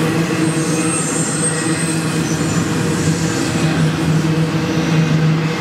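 Double-stack intermodal freight cars rolling past: a steady rumble of steel wheels on rail with a constant low hum, and a faint high squeal from about half a second in to a second and a half in.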